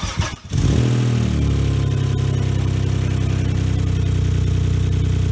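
Saab 900 SE's V6 engine cranked by the starter for about half a second, then catching, flaring up and dropping back within a second into a steady idle. This is the first start of the newly swapped-in engine.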